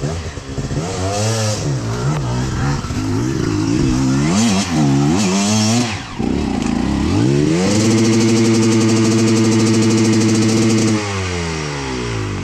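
Enduro dirt bike engine revving in short blips, then rising to a high, steady rev held for about three seconds before dropping back.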